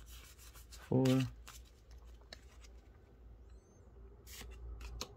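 Pokémon trading cards being slid through by hand, card stock rubbing against card with a few soft flicks.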